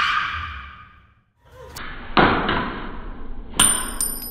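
A fading swish, then two sharp thuds about a second and a half apart.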